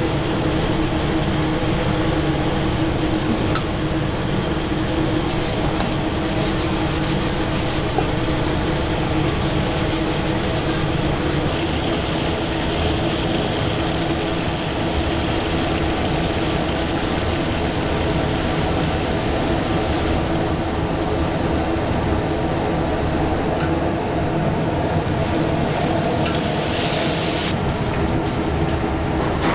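Pieces of flour-dredged mullet deep-frying in a wok of oil over a commercial gas range, with a steady drone from the range underneath. A run of quick ticks and scrapes comes about six to eleven seconds in, and a short louder hiss comes near the end as the fried pieces are lifted from the oil in a wire strainer.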